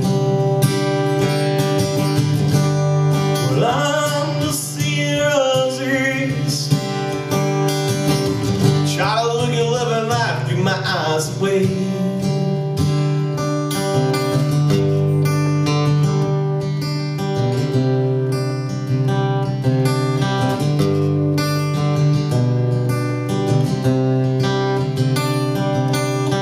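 Live folk song: acoustic guitar strumming steadily. Two short melody phrases slide over it, around four seconds in and again around nine seconds in.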